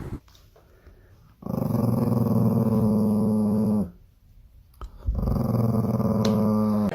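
A dog growling twice in long, steady, low growls, each lasting about two seconds, with a short pause between them.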